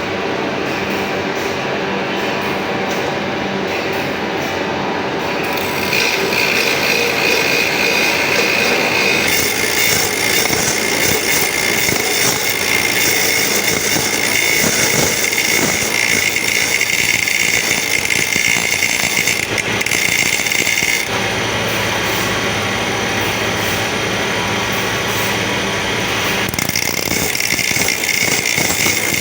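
Crosscut saw teeth being sharpened: continuous metal-on-metal grinding with a steady high-pitched tone, changing character about six, nine, twenty-one and twenty-six seconds in.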